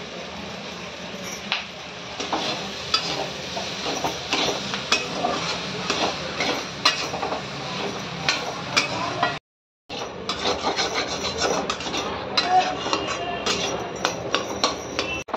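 A long metal spatula scrapes and knocks against a steel kadhai as boiled, mashed potato is stirred and pressed into fried onions and spices. The strokes come thick and irregular. The sound cuts out briefly a little past halfway.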